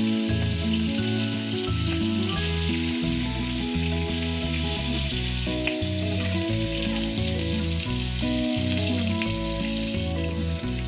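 Marinated fish pieces frying in hot oil in a kadhai, a steady sizzle, while they are turned with a spatula. Background music with a stepping bass line plays over it.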